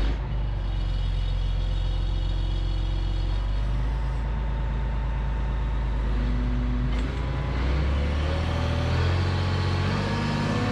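Diesel engine of a tracked timber harvester running steadily, its note shifting a few times as the hydraulic load changes. A pressure gauge is hooked up, so the hydraulics are being tested.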